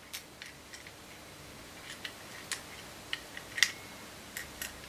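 Scattered small metallic clicks and taps from a brass clock movement being handled and worked apart, with one sharper click and a brief metallic ring about three and a half seconds in.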